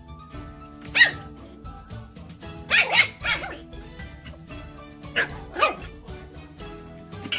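Puppies yapping in play, about six sharp, high yaps in three short runs, over steady background music.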